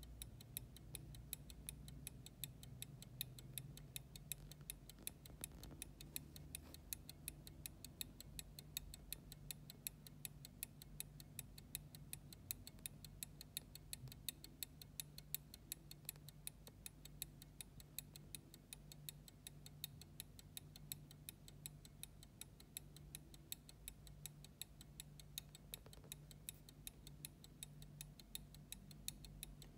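Faint, quick and even ticking of a 1730 John Berry London fusee pocket watch, from its verge escapement beating as the movement runs.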